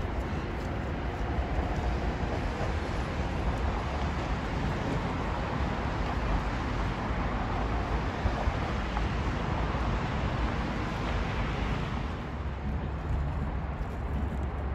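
Steady road traffic noise, a low rumble under a hiss. About twelve seconds in it becomes duller and more distant.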